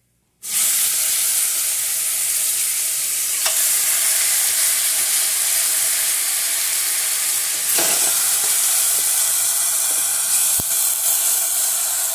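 Raw chicken gizzards hitting hot oil with browned garlic in a pressure cooker pot and frying with a loud sizzle that starts suddenly about half a second in and runs on steadily. A few light knocks sound through it.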